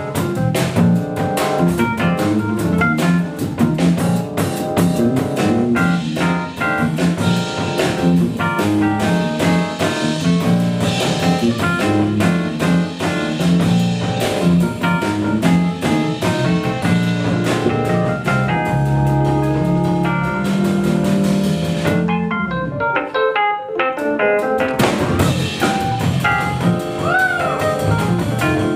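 Live jazz trio of drum kit, electric bass and electric keyboard playing an upbeat groove. About 22 seconds in, the drums and bass drop out for about two seconds, leaving the keyboard, before the full groove comes back.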